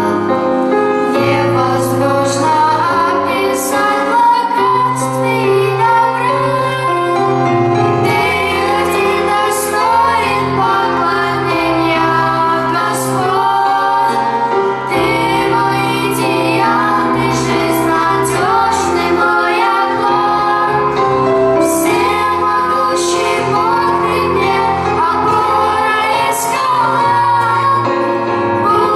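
A song sung by high voices over an instrumental accompaniment with a bass line and regular cymbal strokes.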